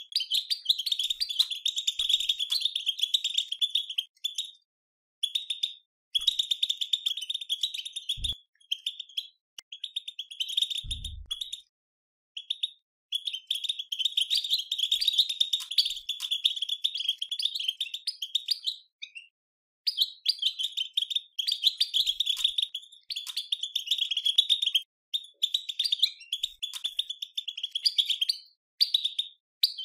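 European goldfinch chattering: the rapid twittering 'batbata' call, in runs of several seconds broken by short pauses. Keepers use this call to stir caged goldfinches into song.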